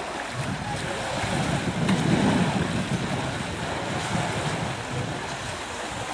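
Steady wash of gentle surf on a beach, with wind gusting on the microphone, strongest about two seconds in.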